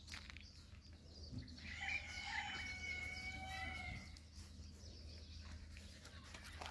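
One long, drawn-out animal call lasting about two seconds, starting a little under two seconds in, rising at first and then held on a steady pitch, over a constant low background hum.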